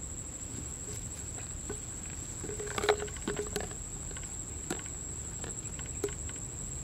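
Insects trilling in one steady high tone, with scattered soft clicks and smacks from a baby monkey sucking its fingers, and a brief low squeak near the middle, the loudest sound.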